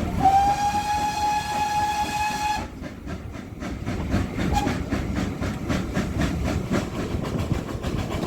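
GWR Manor-class steam locomotive 7828 Odney Manor sounding its whistle, one held note of about two and a half seconds that rises slightly and cuts off sharply. The train then runs on with a steady rhythm of regular beats.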